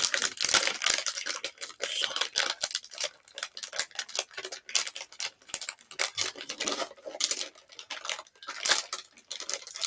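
Plastic packaging of a Model Magic pack crinkling and tearing as it is pulled open by hand, a dense run of irregular crackles.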